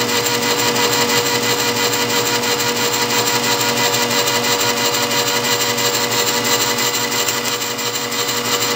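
South Bend 10K light ten lathe running with its power cross feed engaged through the apron clutch: a steady whir of motor and gearing with a regular beat about two or three times a second.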